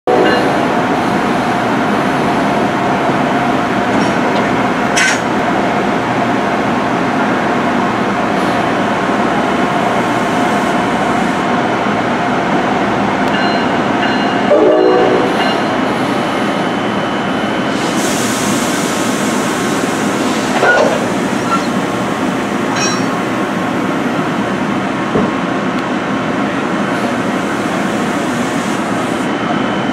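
Amtrak ACS-64 electric locomotive standing at the platform with its machinery running steadily. A short pitched sound comes about 15 seconds in, and a hiss of air about 18 seconds in.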